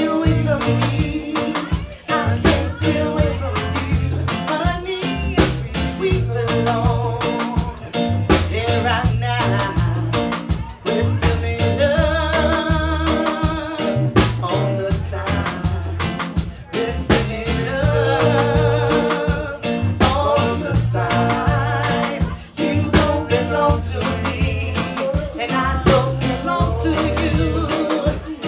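A live reggae band playing: a woman singing over a steady beat of bass, drums and guitar.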